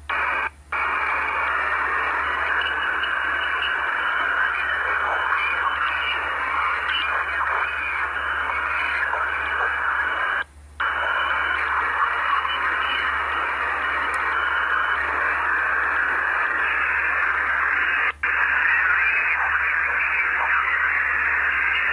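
Radio receiver static: a steady, narrow-band hiss as heard while scanning shortwave frequencies, over a low hum. The hiss cuts out briefly three times.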